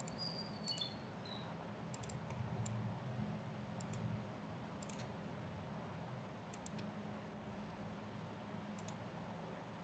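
Computer mouse clicks, singly and in quick pairs every second or two, over a steady low hum. A brief high-pitched tone sounds in the first second.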